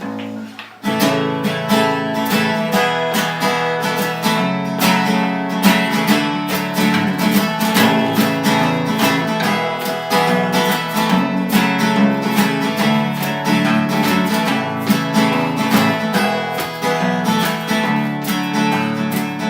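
Acoustic guitars strumming a country intro with a steady beat, starting about a second in, with an egg shaker keeping time.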